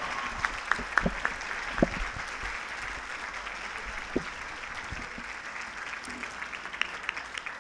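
Audience applause: many people clapping together, fading gradually, with a few scattered single claps near the end.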